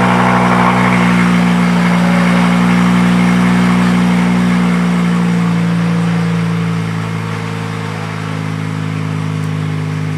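2.5-litre five-cylinder engine of a MK5 Volkswagen Jetta idling loudly just after a cold start, running with the exhaust open where a section of pipe has been cut out for an exhaust cutout. The steady idle eases down and gets somewhat quieter about six to seven seconds in as the high cold idle settles.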